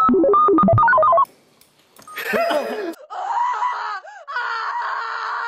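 A quick run of short electronic beep tones hopping up and down in pitch, like a phone keypad, cutting off about a second in. After a brief silence, voices and laughter follow.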